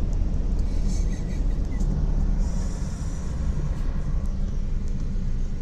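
Steady low rumble of a car driving along a city street, engine and road noise heard from inside the cabin.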